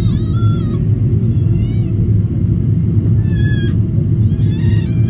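Steady cabin rumble of a Boeing 777-200ER on approach, heard from a window seat. Over it come four short, high-pitched squealing cries, each bending up and down in pitch.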